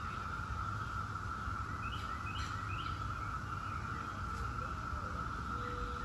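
Chorus of Brood X periodical cicadas, a steady high drone at one even pitch. A few short bird chirps come about two to three seconds in.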